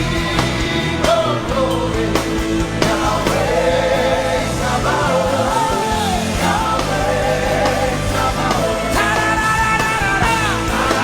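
Worship music with singing over a full band, with a steady beat and bass.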